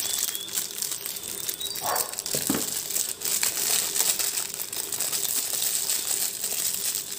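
Thin plastic packaging crinkling and rustling in the hands as it is pulled off a set of plastic plunger cutters, in a dense, irregular crackle.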